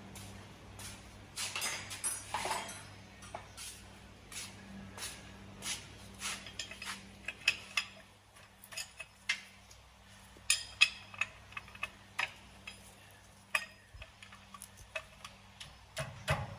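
Irregular metallic clinks and taps of hand tools against car parts, over a steady low hum.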